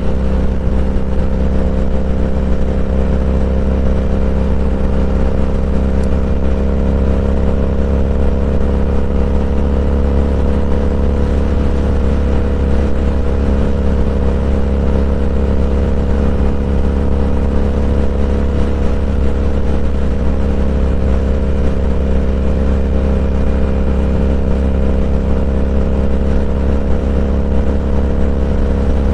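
Motorcycle engine running steadily at cruising speed, a constant drone with no revving or gear changes.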